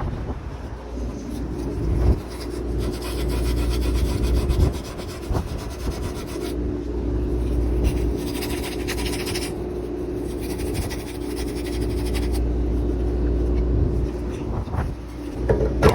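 Repeated fast rasping, rubbing strokes in three stretches over a steady low hum, with wind on the microphone.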